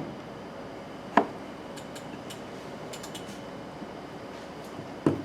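Copper-faced hammer tapping a tuner ferrule into a canjo headstock, which is tricky to get started: a single sharp tap about a second in and another near the end, with faint small clicks of handling between.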